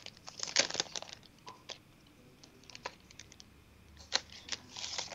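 A clear plastic packet holding a chipboard craft kit being handled as the chipboard piece is pulled out of it: scattered light crinkles and clicks in several short clusters.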